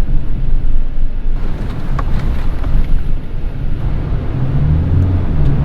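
Mitsubishi Triton pickup driving over rough off-road ground, heard from inside the cab: a loud, low engine and road rumble with a few short knocks. The engine note grows louder about four seconds in.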